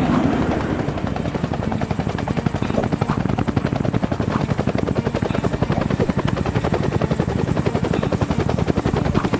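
Helicopter running: rapid, even chopping of the rotor blades, with a steady high whine above it.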